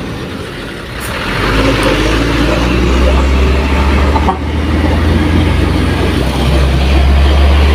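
Truck engine running, a low rumble that swells about a second and a half in and then holds steady.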